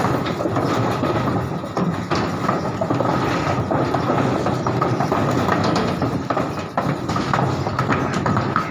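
Donkeys' hooves clattering and knocking on a wooden-slatted unloading ramp as a group of donkeys comes down off a truck: a continuous jumble of knocks, with a faint steady tone underneath.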